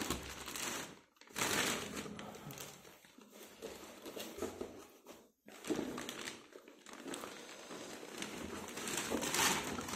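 Packaging crinkling and rustling in several bursts as books are pulled out of their wrapping, with short pauses about a second in and midway.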